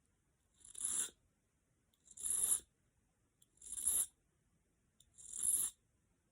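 Small Swiss file drawn across the point of a steel fishing hook: four slow file strokes about one and a half seconds apart, each scrape swelling and then stopping short, to sharpen the point.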